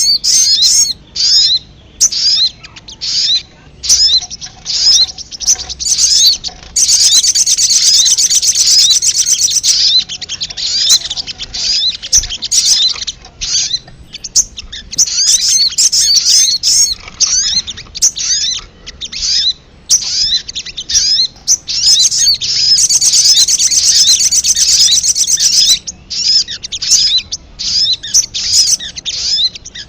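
Sogon (sogok ontong) birds calling in a bird-lure recording: fast, high, repeated chirps that thicken into dense, unbroken chattering twice, about seven seconds in and again a little past twenty-two seconds.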